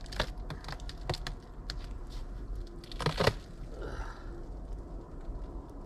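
Gloved hands handling a beehive's outer lid: scattered light clicks and crinkling, with a louder cluster of knocks about three seconds in.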